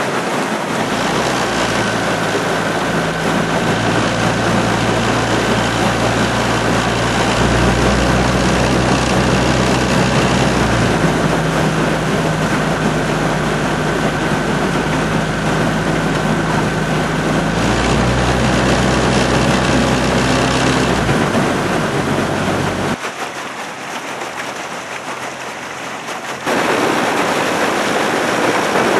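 Outboard motor of a boat running steadily alongside the rowers, its pitch stepping up and down a few times, over a steady hiss of wind and water. The motor hum drops away for a few seconds near the end.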